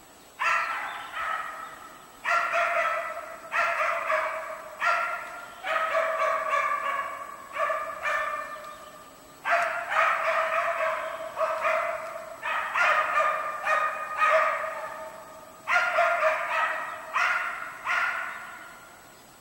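West Siberian laikas barking in quick runs of barks with short pauses between, each bark echoing briefly among the trees: hunting dogs baying a moose they have found and are holding.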